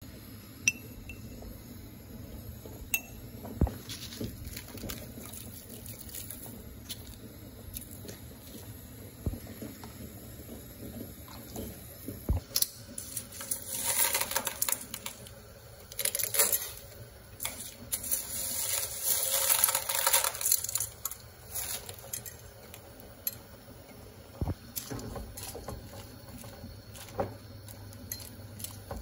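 Cooking sounds at a stainless steel pot of water: scattered clinks and knocks of utensils against the pot, and two stretches of water noise near the middle, a short one and a longer one lasting several seconds.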